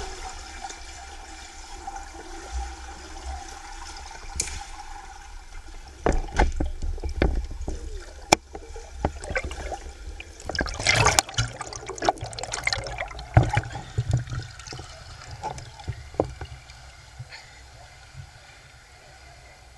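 Pool water heard through an underwater camera's microphone: a low rumble with scattered clicks and bubbling. About halfway through comes a flurry of splashing as the freediver stands up and breaks the surface, then it settles to gentle lapping water.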